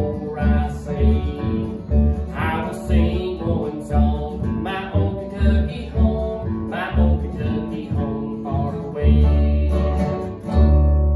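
Acoustic guitar and upright bass playing a bluegrass-style tune, the bass plucking about two notes a second under strummed chords. Near the end it closes on long ringing notes.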